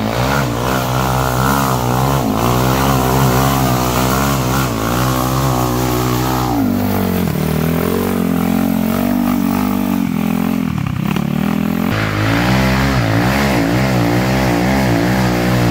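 Small off-road go-kart engine running hard, its revs wavering up and down with the throttle. The revs drop deeply and climb again twice, around seven and eleven seconds in, and the sound changes abruptly about twelve seconds in.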